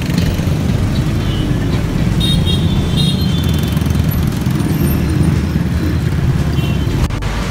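Busy road traffic, cars and motorcycles running in a slow-moving jam, a steady low rumble of engines and tyres.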